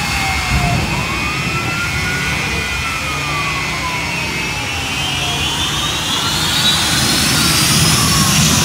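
Jet engine of the AfterShock jet fire truck running, with its turbine whine climbing in pitch through the second half. A wailing siren rises and falls slowly over the jet noise.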